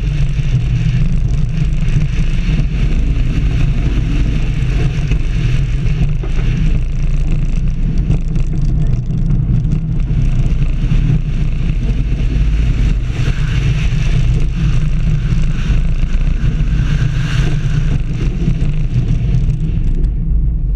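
Shambhala, a Bolliger & Mabillard hyper coaster, with its train running at speed: a loud, steady rumble of the wheels on the steel track and wind rushing over the front-mounted camera's microphone. Near the end the wind noise drops away as the train reaches the brake run.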